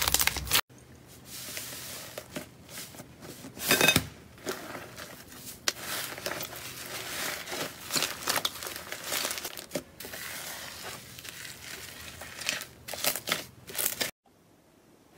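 Hands kneading and pulling stringy blue slime in a bowl, giving irregular sticky crackling and tearing, with a louder burst about four seconds in and a few more near the end. It opens with a brief loud crunchy crackle of red slime being squeezed, and goes near silent in the last second.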